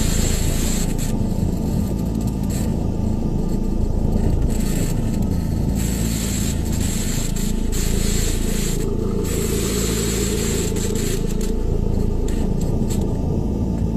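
Steady low grinding, scraping noise with faint tones slowly sweeping up and down through it, and a brief hiss that comes and goes several times.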